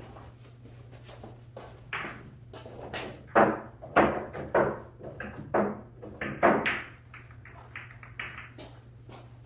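A quick series of hard clacks and knocks, typical of pool balls striking one another and the table; the loudest cluster comes from about three to seven seconds in, then the knocks thin out and grow fainter.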